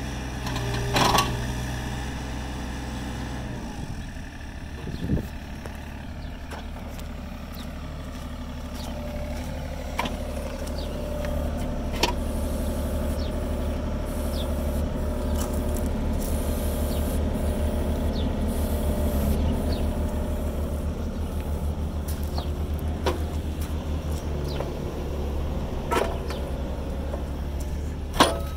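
Case CX36B mini excavator's diesel engine running steadily, its low note changing about four seconds in. A few sharp knocks and clicks come through over it.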